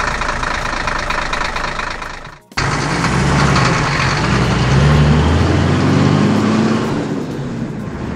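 Truck engine running with a fast rattle, cutting off about two and a half seconds in; then an engine starts up again and revs, its pitch rising for a few seconds and easing down near the end.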